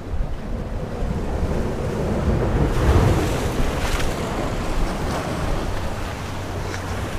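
Surf washing against a rocky shoreline, swelling about three seconds in, with wind buffeting the microphone.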